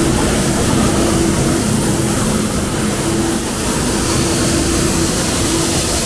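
Steady hiss of compressed air from a paint spray gun laying down clear coat, over a low hum.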